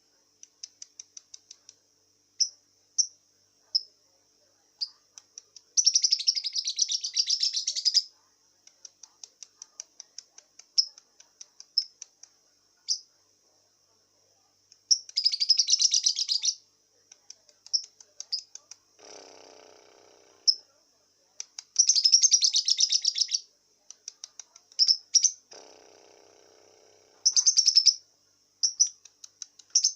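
Young lovebird, about two and a half months old, chirping in quick high ticks, breaking four times into dense runs of chatter lasting one to two seconds. Twice, about two-thirds of the way and again shortly after, a short lower, rougher sound comes in: the hoarse voice the young bird is being trained in.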